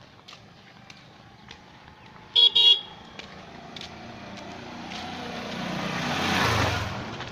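A motorcycle's horn gives two short toots in quick succession, then its engine grows louder as it approaches and passes close by, falling away near the end.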